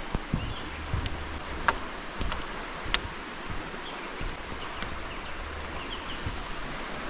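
Footsteps on the metal grating deck of a wire suspension footbridge: dull thuds and a few sharp clinks, the loudest about three seconds in. They sound over a steady rushing background, with faint bird chirps in the second half.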